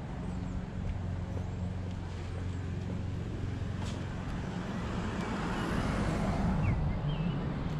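A car driving past on the road, its engine and tyre noise swelling to a peak about six seconds in, then fading.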